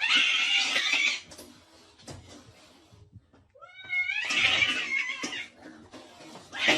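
A cat crying out: harsh, noisy cries in the first second and again near the end, and a rising yowl about three and a half seconds in that runs into a rough cry.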